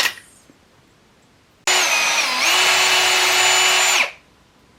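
Power drill running for about two seconds, starting and stopping abruptly; its whine dips in pitch briefly, then holds steady.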